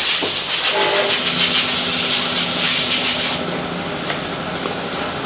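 A loud, steady hiss that cuts off suddenly about three and a half seconds in, over a steady low hum.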